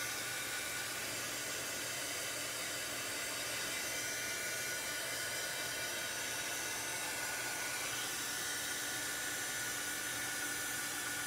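Handheld dryer running steadily, a constant airy hiss with a faint steady high tone, blowing over wet chalk-transfer ink on a fabric pennant banner to dry it.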